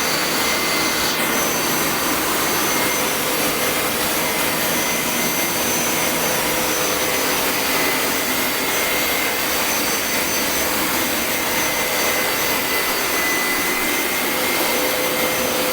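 Home carpet-washing machine running at full suction: a loud, steady rushing noise with a constant motor whine.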